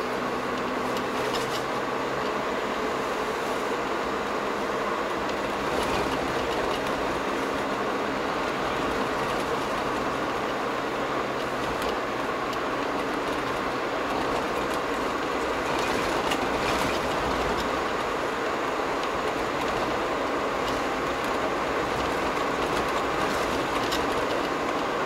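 Steady road and tyre noise heard inside a moving car's cabin, with a few light knocks from the road surface.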